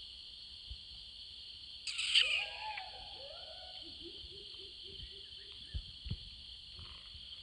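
Steady high-pitched insect drone. About two seconds in, a short, loud harsh call cuts across it, followed by a quick run of low repeated notes around four to five seconds in, and two soft thumps near six seconds.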